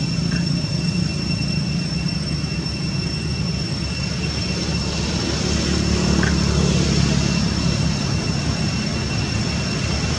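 Steady background drone: a low rumble with a thin, continuous high-pitched whine above it, unchanging throughout.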